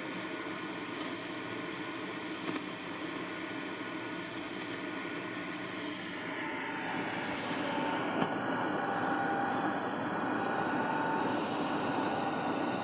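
Belka-DSP shortwave receiver in AM on 5980 kHz: steady hiss and static, with a very weak distant broadcast barely audible above the noise. About seven seconds in the noise grows louder and a few faint steady tones appear.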